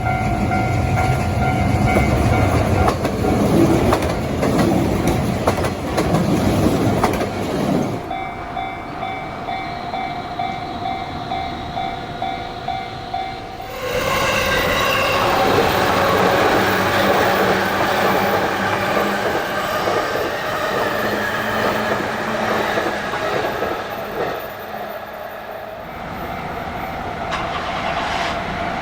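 Japanese level-crossing warning bells ringing with their steady clang, while trains rumble and clatter over the track. The scene changes abruptly about eight seconds in, where the bell is heard alone, and again near fourteen seconds, where another crossing rings as a train passes.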